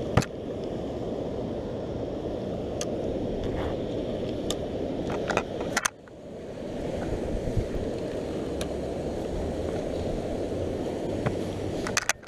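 Steady rushing of turbulent water pouring over the dam's rocks, with a few sharp clicks from handling the rod and reel. About six seconds in the sound drops out suddenly and swells back over a second.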